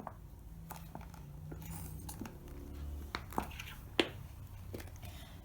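A plastic bottle of liquid glue being handled and squeezed to empty it, giving a few sharp clicks and knocks, the loudest right at the start and about four seconds in.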